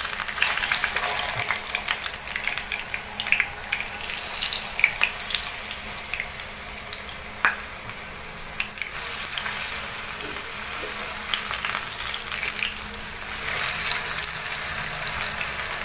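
Stuffed ripe plantains coated in maida batter shallow-frying in coconut oil in a nonstick pan: a steady sizzle with scattered pops and crackles. A wooden spatula and fork knock and scrape against the pan as the pieces are turned.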